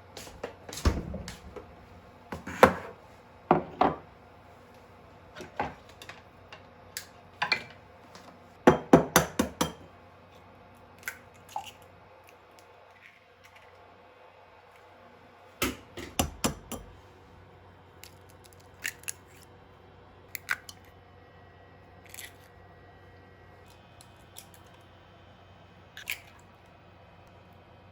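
Irregular clicks, taps and clatters of small objects being handled, busiest in the first ten seconds and sparser afterwards, over a low steady room hum.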